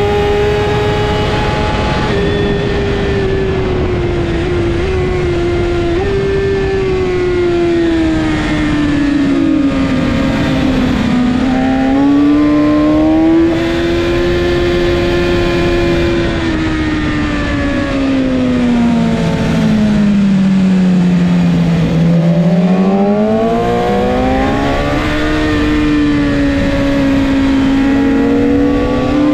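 BMW S1000RR inline-four engine heard from onboard at racing speed. It is held high and steady flat out at first, then its pitch falls and rises repeatedly as the rider brakes, downshifts and gets back on the throttle through corners. It is lowest about three-quarters of the way through and climbs again near the end, with wind rush underneath.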